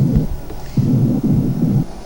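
A whispered "one, two, three" heard through a stethoscope's diaphragm on the chest over healthy lung: a few muffled low bursts like the sound of drums, with no words to be made out. This is the normal finding, with no whispered pectoriloquy.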